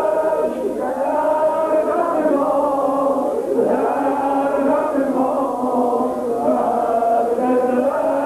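Several voices chanting a Yarsan (Ahl-e Haqq) devotional chant together, in long held phrases that rise and fall.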